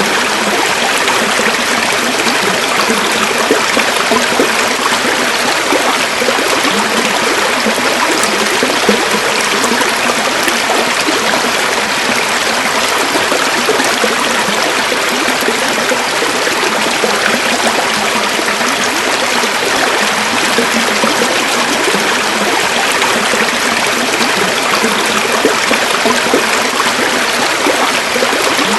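A river or stream flowing and babbling, a steady rush of water over stones.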